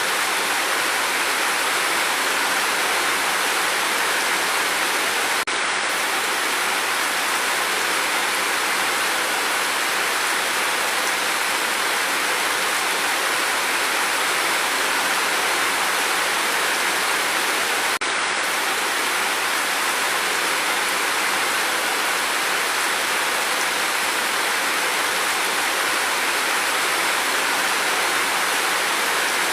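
Steady rain falling, with no thunder: an even, unbroken wash of sound. It drops out for an instant twice, about five and eighteen seconds in.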